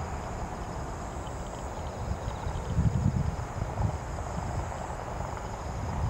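Outdoor ambience: a steady, high-pitched chirring of insects over a low, uneven rumble that swells about three seconds in.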